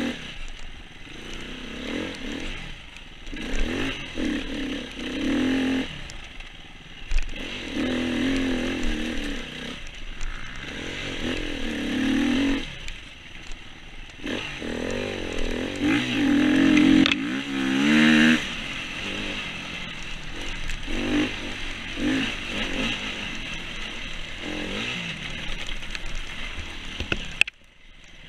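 KTM 525 EXC single-cylinder four-stroke enduro bike's engine heard from onboard, revving up and easing off over and over as the rider works the throttle and gears. The sound drops out sharply for about a second near the end.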